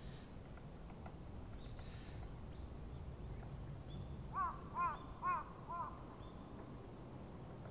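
A crow cawing four times in quick succession, about half a second apart, a little past the middle, over a faint steady low outdoor rumble.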